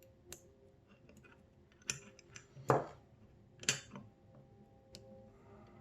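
Small metal parts of a Mul-T-Lock MT5+ lock cylinder clicking and clinking as it is taken apart. There are about five sharp, separate clicks, the loudest a little before the middle.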